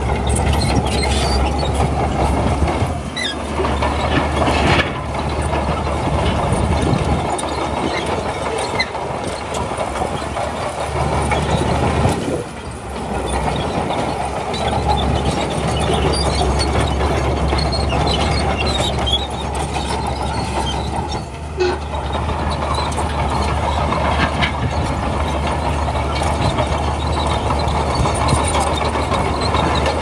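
Heavy diesel machinery, a Shantui crawler bulldozer, running steadily and loud, with a deep low hum and short dips in level about three, twelve and twenty-one seconds in.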